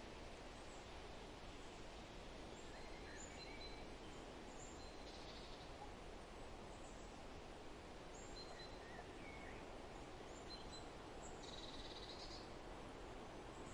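Faint forest ambience: a steady background hiss with scattered short, high bird chirps from unseen songbirds, and two louder calls, one about five seconds in and a longer one about twelve seconds in.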